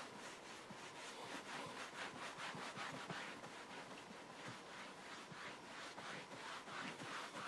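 A cloth rubbed by hand in quick back-and-forth strokes over a plastic Tenite TV screen cover, buffing off a polish to clear its cloudy oxidised surface: a faint, rhythmic rubbing.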